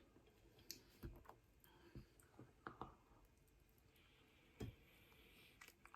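Faint eating sounds from a mouthful of spaghetti bolognese: a handful of soft, short clicks scattered over a few seconds, with near silence between them.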